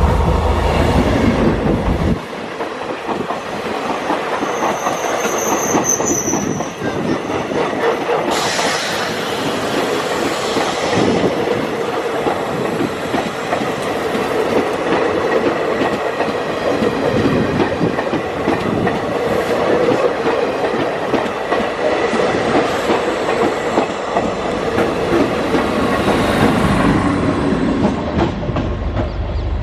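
Indian Railways diesel train's coaches rolling past close by, wheels clattering over the rail joints in a steady run, with a brief high wheel squeal about five seconds in. A heavy low rumble in the first two seconds stops abruptly.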